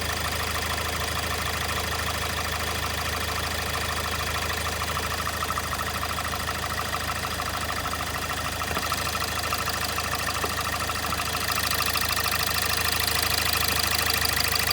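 Kia Sportage 1.7 CRDi (D4FD) diesel engine idling with the oil filler cap closed. It makes a fast, steady knocking rattle that grows slightly louder about three-quarters of the way through. The owner hears this as an abnormal engine noise, which the dealer thinks could be the injectors.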